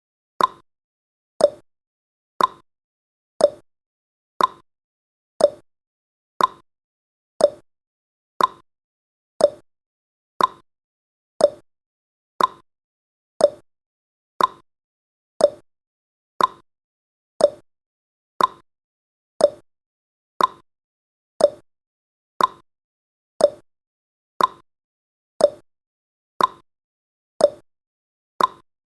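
Clock tick-tock sound effect of a countdown timer: one sharp tick every second, alternating between a higher and a lower tick.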